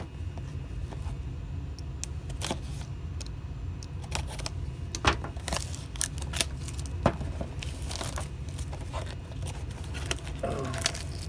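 Sealed trading card box being unwrapped and opened by hand: scattered crinkling, tearing and clicking of plastic wrap and cardboard over a low steady hum.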